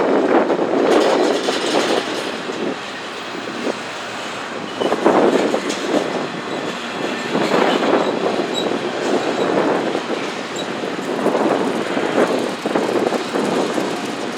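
Norfolk Southern freight train rolling past, its car wheels rumbling and clacking on the rails in a steady noise that swells and eases every few seconds.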